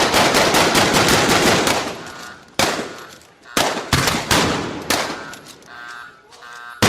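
Gunfight sound effect: about two seconds of rapid automatic fire, then single gunshots spaced irregularly, each trailing off in an echo.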